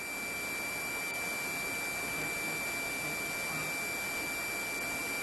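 A steady high-pitched tone over an even hiss on the police radio audio, heard between transmissions.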